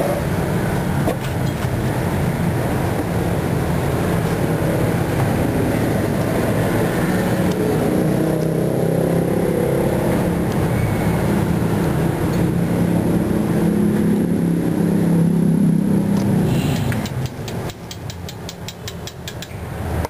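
A steady low mechanical rumble that swells slightly, then drops off sharply about three seconds before the end, followed by a quick run of light clicks.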